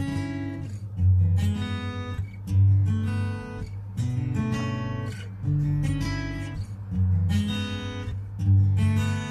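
Background music: a guitar strummed, a new chord about once a second.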